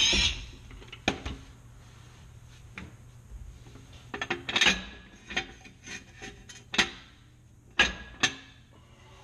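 Background music cuts off at the start. Then a run of separate sharp metal clicks and clanks, a steel jack stand being handled and set under a truck's rear axle, with a quick cluster of clicks about four and a half seconds in and two loud knocks near the end.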